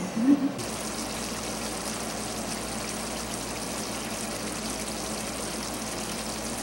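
Chilli paneer gravy simmering in a pan, a steady bubbling hiss that starts suddenly about half a second in.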